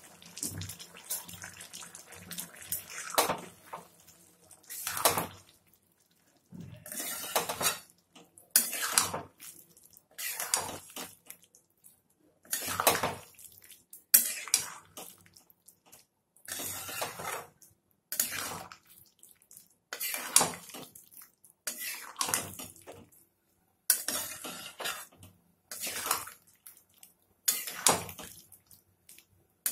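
A spatula scraping and stirring in a metal pan, in repeated strokes every second or two, mixing poppy-seed paste into wet boiled potatoes.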